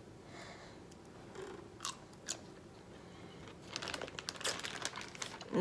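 Close-up crunching and chewing of a crisp dill pickle soaked in Kool-Aid. A couple of sharp crunches come about two seconds in, then a run of quick crunching near the end.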